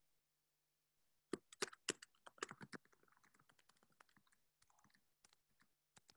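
Typing on a computer keyboard: a quick run of sharp, irregular key clicks a little over a second in, then lighter scattered taps.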